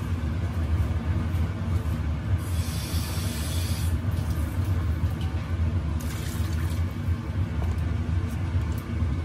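Pot of soup cooking on a gas stove: a steady low rumble with a soft hiss over it, the hiss swelling briefly about two and a half seconds in and again about six seconds in.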